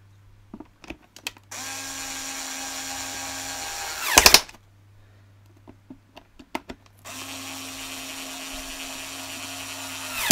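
Small cordless electric screwdriver driving in two screws, each run a few seconds long with a steady whine and ending in a brief, louder burst. Light clicks of handling fall between the two runs.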